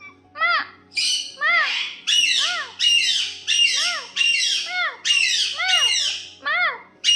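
Pet parrot squawking over and over. It gives about two harsh, screechy calls a second, and each call carries a short rising-and-falling note.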